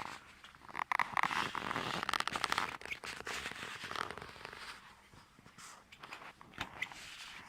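Rapid crackling and clicking close to the microphone from a pet chicken moving about, densest in the first three seconds and thinning out after.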